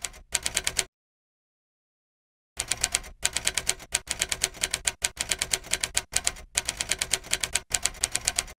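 Typewriter keys clacking rapidly: a short burst, then after a gap of over a second a longer run with a few brief breaks, cutting off abruptly.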